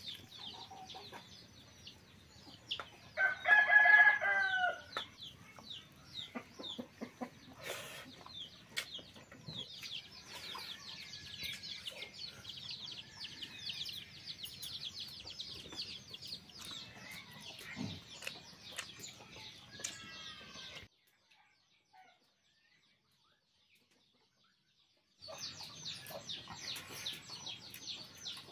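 A rooster crows once, loudly, about three seconds in, over a steady chorus of many small birds chirping with hens clucking. The sound cuts out almost completely for about four seconds near the end.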